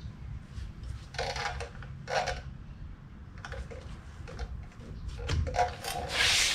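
A gloved hand gripping and turning a front car tyre on its wheel, making several short rubbing scrapes. The longest and loudest comes near the end. A low steady hum runs underneath.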